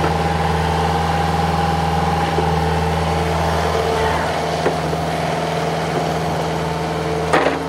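John Deere 50G compact excavator's diesel engine running steadily under load while the boom and bucket work through a digging cycle, with a steady higher whine over the engine. A single sharp knock comes near the end.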